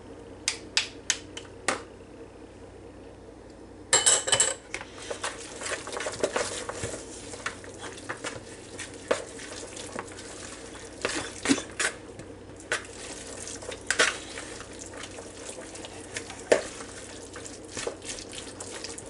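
A metal spoon taps a few times against a plastic mixing bowl. After a short pause it scrapes and stirs continuously through a thick mayonnaise-bound ham salad, with scattered clicks of the spoon on the bowl's side.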